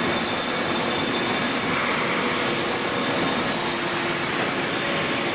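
Vertical ultrasonic washing machine running: a steady, even machine noise with a few faint steady tones.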